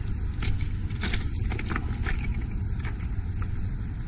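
Wind buffeting the microphone outdoors: a steady low rumble, with a few faint clicks.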